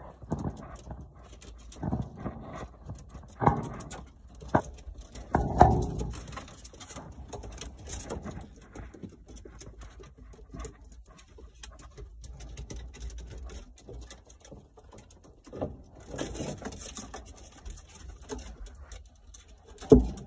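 Ferrets chewing and tearing at a raw rabbit carcass, with wet gnawing, scuffling and a few louder knocks as the carcass and animals bump about in a wooden box.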